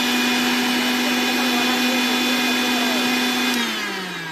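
Mixer grinder's electric motor running at a steady high whine on a test run after its stuck bearing was refitted. It is switched off about three and a half seconds in, and the whine falls in pitch as the motor spins down.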